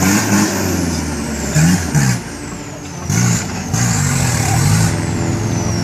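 Off-road 4x4 engine revving up and down several times. A high whistle falls in pitch near the start and again near the end.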